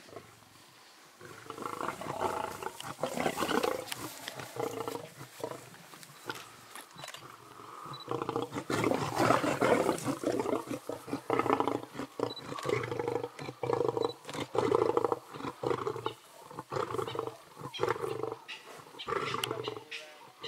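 Male lions snarling and growling in repeated bouts at a young white rhino carcass as they contest the kill. The calls start about two seconds in and are loudest around the middle.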